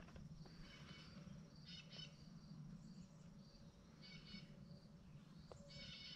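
Near silence in the woods, with faint bird calls: about four short bursts of chirps, roughly every one to two seconds, over a faint steady insect drone.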